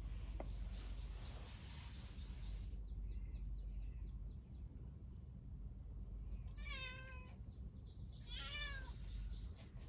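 A cat meowing twice, in two drawn-out calls about a second apart in the latter half. Before them comes a rushing hiss.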